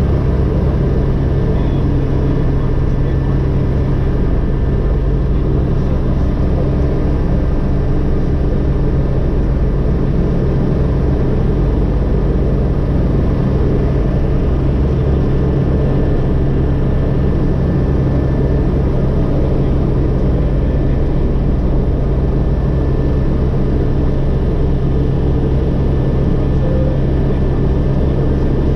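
Agusta AW119 helicopter running steadily with its main rotor at near full speed (97% rotor rpm). The single turboshaft engine's whine and the four-blade rotor's low beat are heard from inside the cockpit with the doors open.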